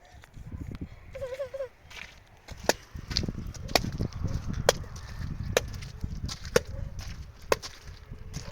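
Sharp knocks repeating about once a second, starting about two and a half seconds in, over a low rumble. A short wavering whine comes about a second in.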